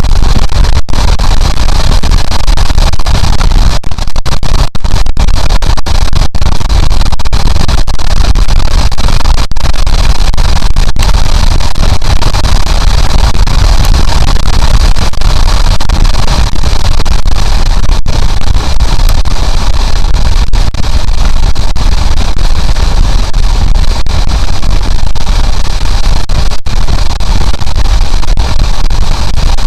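Loud, steady wind rush on the camera microphone at highway speed, mixed with a Honda CB750's inline-four engine running at a steady cruise.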